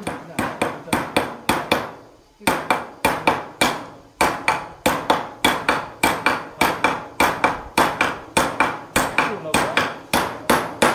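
Hammering: a long run of steady hammer blows at about three a second, each with a short ringing tail, broken by a brief pause about two seconds in and another near five seconds.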